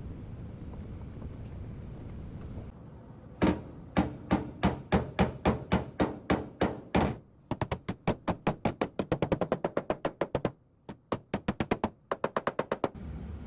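Paintless dent repair hammer tapping on a high-strength steel car door to knock down high spots. The taps are quick and light, starting about three seconds in at roughly three a second. They speed up to about five a second, with two short breaks.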